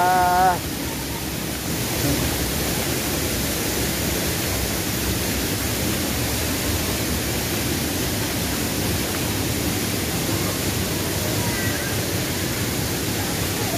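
Steady rushing of a waterfall and of shallow stream water running over a flat rock bed, an even hiss. A voice says one short word at the very start.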